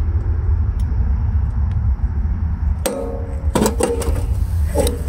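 A click-type torque wrench tightening a mower blade bolt, giving a sharp click about three seconds in as it reaches its set torque of 35 foot-pounds, followed by a few more metallic clicks. A steady low rumble runs underneath throughout.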